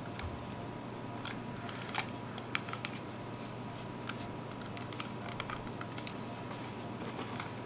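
Irregular light clicks and taps of a plastic computer mouse being handled after reassembly, a few sharp ticks at uneven spacing over a steady low hum.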